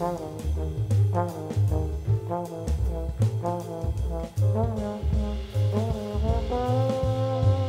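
Jazz trombone playing a line of short, bending notes, then holding a long note near the end, with upright bass and drum kit underneath.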